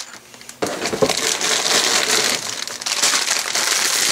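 Clear plastic bags of LEGO pieces crinkling and rustling as they are handled and set down, starting about half a second in.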